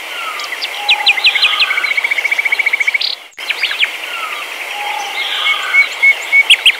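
Birdsong from several birds, chirping and whistling over a steady hiss, with a rapid trill of about ten notes a second; it cuts off abruptly about three seconds in and a nearly identical passage starts again, like a looped birdsong recording.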